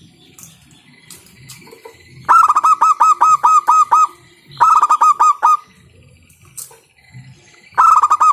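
Zebra dove (perkutut) calling loudly in runs of quick staccato coos: about eight notes starting about two seconds in, a shorter run of five, and another run near the end.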